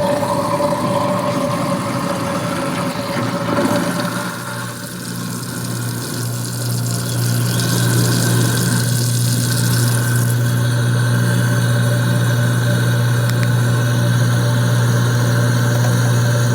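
Kitchen garbage disposal motor running with a steady hum while grinding a load of ice cubes with dish soap. The rough grinding noise is strongest for the first few seconds, then eases into a smoother, even running hum.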